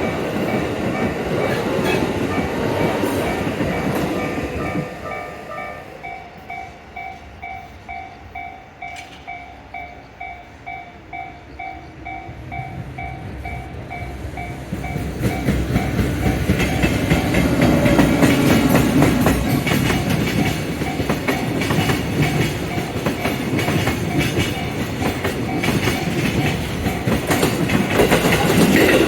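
Japanese level-crossing warning bell dinging steadily as trains pass. One train's rumble fades about five seconds in, leaving the bell clear, and about halfway through another train runs by loudly with wheels clattering over the rails.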